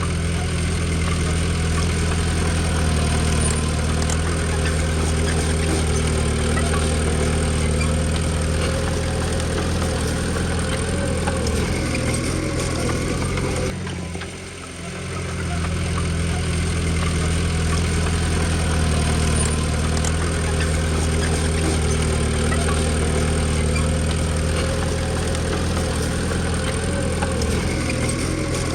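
Komatsu D20P bulldozer's diesel engine running steadily, with a short drop in level about halfway through before it carries on.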